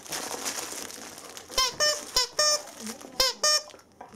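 A plush dog toy's squeaker squeaking in quick pairs, three pairs in all starting about a second and a half in, after a crinkly rustling of the toy at first.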